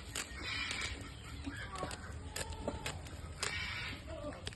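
Scissors snipping through a woven sack (karung) to cut it open, with sharp clicks of the blades and rustling of the sack material, two longer rustles about half a second and three and a half seconds in.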